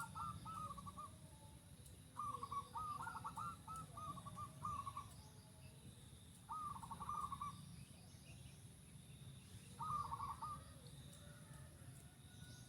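Zebra doves (perkutut) cooing: short phrases of soft, stepped coo notes, repeated in four bouts a few seconds apart.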